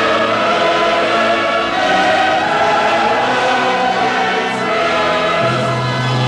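Choir singing slow, sustained chords over orchestral accompaniment, with a low bass note entering near the end.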